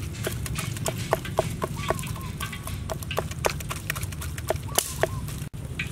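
Kitchen knife cutting into pork belly on a wooden chopping board, giving irregular sharp taps and knocks two or three times a second. Hens cluck in the background over a steady low hum.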